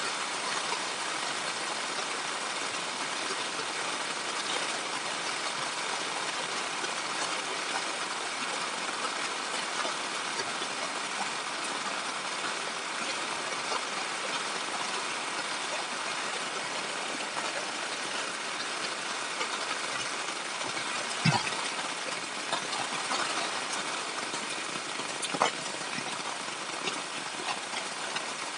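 Heavy rain falling: a steady, dense hiss. Two sharp knocks come late on, about four seconds apart.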